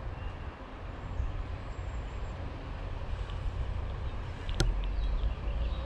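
Steady low rumbling outdoor noise, with one sharp click about four and a half seconds in.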